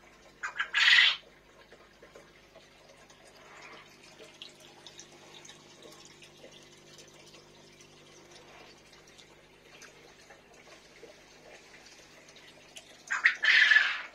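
A stream of water pouring and splashing into a glass aquarium, loud in two short bursts, one about half a second in and one near the end, with a faint trickle between.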